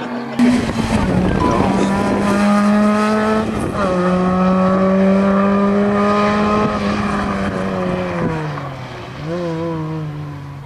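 Rally car engine held at high revs, its note steady with small steps between gears. It drops away about eight seconds in, picks up again briefly, then fades. It opens with a sudden loud burst.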